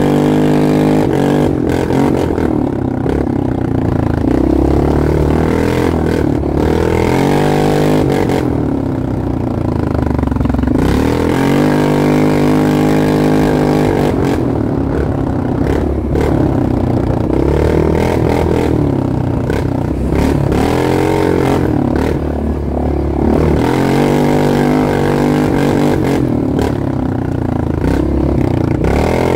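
ATV engine running under varying throttle on a rough dirt trail, its pitch rising and falling every few seconds as the rider gets on and off the gas, with the machine rattling over the bumps.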